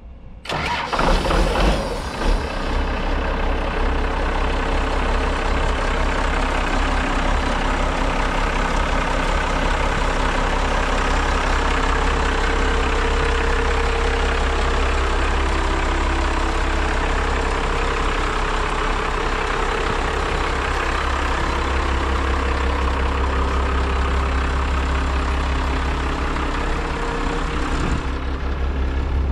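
Morbark SP211HP3 wood chipper's six-cylinder Cummins B5.9C turbo diesel engine running steadily with a deep rumble. It comes in suddenly about half a second in and is uneven for the first couple of seconds before settling.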